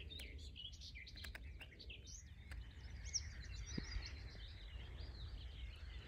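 Faint songbird chirps and trills from small birds in the open field, over a low steady rumble.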